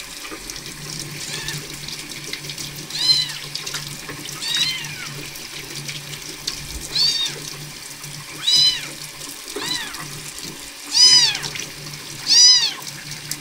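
A very young kitten mewing, about seven short, high cries a second or two apart, each rising and falling in pitch, the loudest near the end. Tap water runs steadily into a sink underneath.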